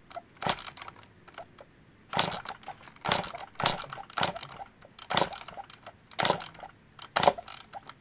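Yamaha YZ250 two-stroke dirt bike being kick-started over and over, about one kick a second; the engine turns over with each kick but never fires. The owner takes it for a flooded engine, and the cause proves to be a fouled spark plug.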